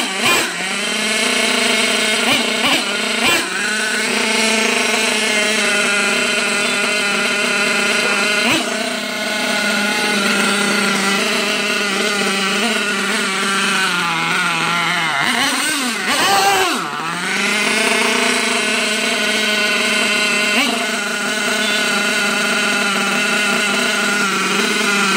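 OFNA X3 Sabre RC car's small nitro glow engine running fast and steady with a high buzzing note. The revs dip and pick back up near the start and again about fifteen seconds in.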